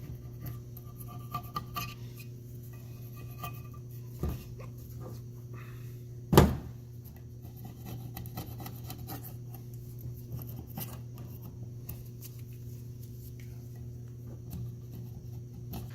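Light clinks and rubbing from hand tools and parts being handled, over a steady low hum, with one sharp knock about six and a half seconds in.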